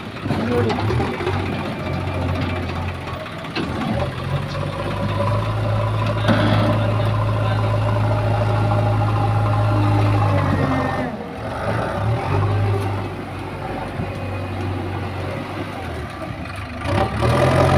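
JCB 3DX backhoe loader's diesel engine running under work, a steady low drone as it pushes into the soil heap and carries a load in its raised front bucket. The drone is strongest in the middle, drops off shortly after, and rises again near the end.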